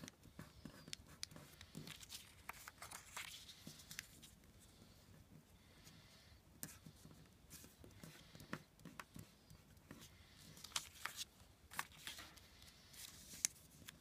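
Faint rustling and crinkling of a sheet of origami paper being folded and creased by hand on a tabletop, with many short sharp clicks as the folds are pressed down.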